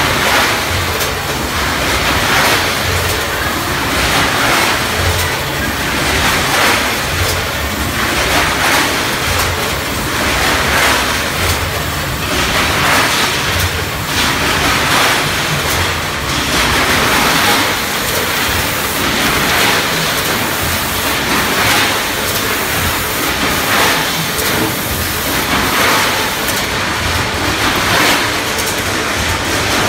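Premade-pouch packaging line for chestnuts running, with its bag-filling and sealing machine, weigher and bucket conveyor: a steady mechanical noise with a repeating swell about every two seconds.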